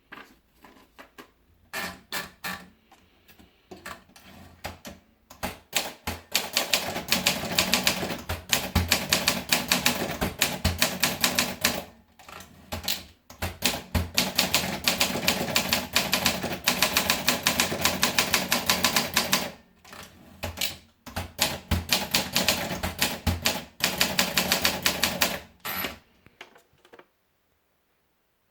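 Olympia Monica manual portable typewriter being typed on: runs of rapid keystrokes broken by a few short pauses, with a short high ring near the end.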